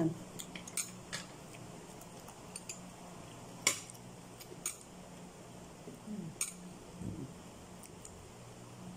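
Scattered light clinks of cutlery on dishes, with one sharper clink about four seconds in, over a faint steady hum.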